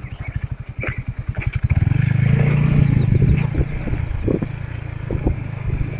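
Small motorcycle engine running at low revs with a fast, even beat, then picking up revs about two seconds in and running steadily as the bike rides along.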